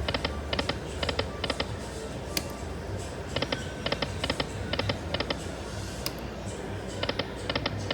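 Lightning Link Moon Race video slot machine spinning, its reels stopping one after another in quick runs of short ticks, spin after spin, over the machine's background music.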